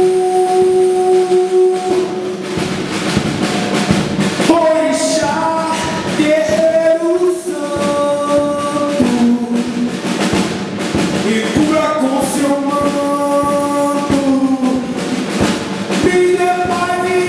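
Live band playing loud music with busy drumming, and a voice singing long held notes through the PA.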